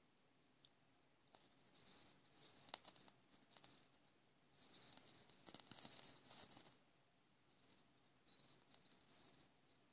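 Small carbon rods arcing on 12 V, crackling and sizzling faintly in three spells of about two seconds each, with a few sharp ticks.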